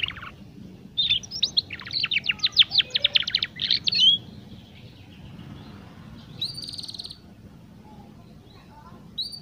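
Juvenile domestic canary practising its song, typical of a young bird still learning: a fast run of quick rising and falling chirps for about three seconds, then softer scattered notes with one short buzzy trill later on.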